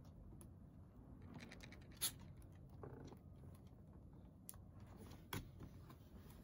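Faint scratching and ticking of a dog's claws on plastic balcony deck tiles as the dog moves about. Two sharp clicks stand out, about two seconds in and again just after five seconds.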